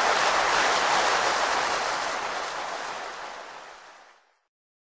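An even rushing noise, like surf, that fades out to silence about four seconds in.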